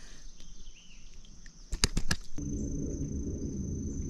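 Outdoor insects, likely crickets, trilling steadily in one high tone. A couple of sharp clicks come just under two seconds in, then a steady low rumble cuts in abruptly about halfway through.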